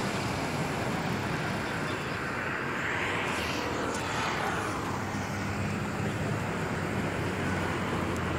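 Steady outdoor noise of surf and road traffic, with one passing rush that swells and fades about three to four seconds in.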